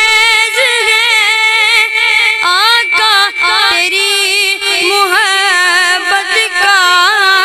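A boy's high voice singing an Urdu naat unaccompanied, holding one long wavering note for the first two seconds or so, then moving through short ornamented phrases.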